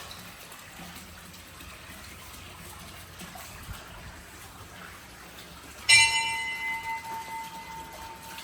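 A metal temple bell struck once about six seconds in: a sharp clang whose higher ringing tones fade quickly while one clear tone keeps ringing.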